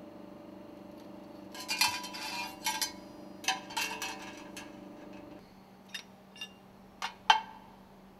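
Metal clinking and scraping as the segmented sealing and scraper rings of a MAN B&W two-stroke engine's piston-rod stuffing box and their wire springs are worked loose with a hand tool and set down on the work table: a rattle of quick clinks early on, then a few separate sharp clicks near the end. A steady low hum underneath stops a little past halfway.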